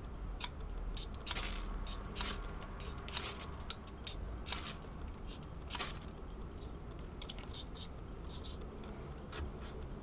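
A small ferrocerium fire steel scraped hard with a metal striker, throwing sparks: about six sharp scrapes in the first six seconds, then a few lighter ones.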